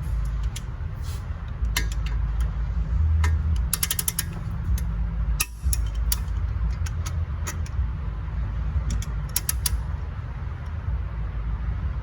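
Snap-on click-type torque wrench being worked by hand on brake caliper bolts, its ratchet pawl clicking in scattered single clicks and quick runs as the bolts are torqued down, over a steady low rumble.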